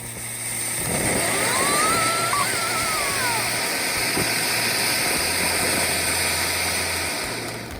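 A spark-spraying firework hissing steadily. It builds up over the first second and dies away near the end.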